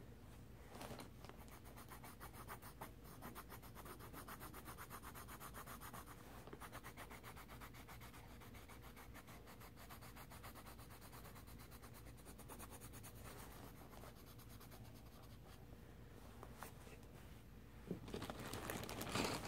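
Faint, rapid scribbling of coloring strokes on a paper page: a steady run of short scratchy back-and-forth strokes. There is a louder rustle of handling near the end.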